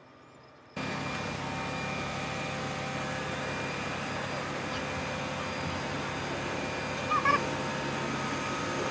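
Aerial ladder fire truck running steadily: a constant mechanical hum with a whine of several steady tones, cutting in abruptly about a second in. A short, high squeak sounds about seven seconds in.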